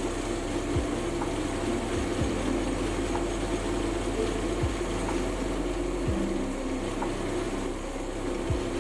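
Sieg C3 7x14 mini lathe running at its lowest speed and taking a roughing cut on aluminium with a high-speed steel tool: a steady motor and gear hum with the cutting noise, and faint ticks now and then.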